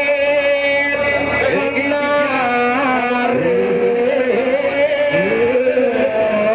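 Several voices singing a slow, ornamented devotional chant, with long held notes that waver and glide between pitches and overlap one another.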